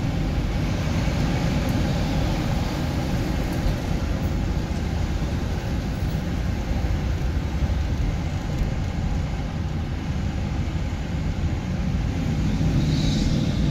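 Steady road and engine rumble of a car being driven, with a brief hiss near the end.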